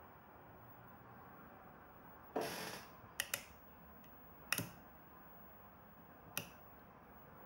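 A handful of sharp clicks from switches and controls on a video mixer being worked by hand, some in quick pairs, over faint background hiss.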